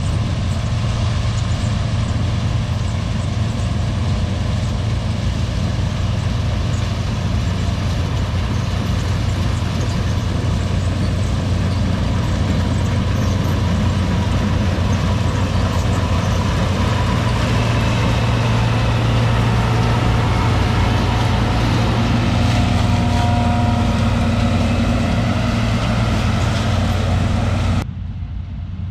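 Combine harvester running steadily at work, its diesel engine and machinery making a loud, even low hum; the sound cuts off suddenly near the end.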